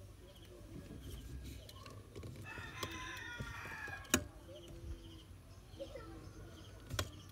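A rooster crows once about two and a half seconds in, lasting just over a second. A sharp click follows right after, the loudest sound here, with a second click near the end, over faint chirping that repeats at a regular pace.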